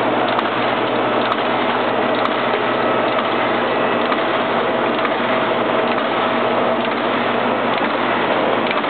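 Otto Hansel HTR chocolate bar wrapping machine running, with a steady, fast mechanical clatter from its gears and linkages.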